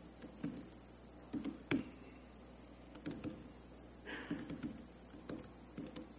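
Typing on a laptop keyboard: irregular key clicks and taps, one sharper tap just under two seconds in.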